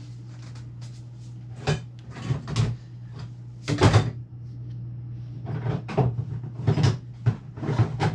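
Hard objects knocking and clattering as tools and parts are rummaged through and handled, in separate knocks that come faster near the end. A steady low hum runs underneath.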